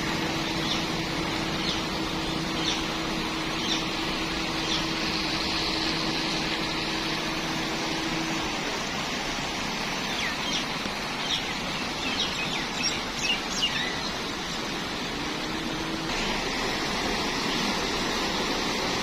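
Steady rushing of floodwater, with birds chirping over it, most often in the second half. A faint steady hum runs through the first half and then stops.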